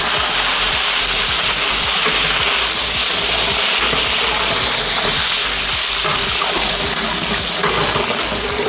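Hot sunflower oil sizzling steadily in a large aluminium pot as cinnamon, cardamom and green chillies fry in it, while a long ladle stirs them: whole spices being sautéed in hot oil at the start of a kuzhimandi.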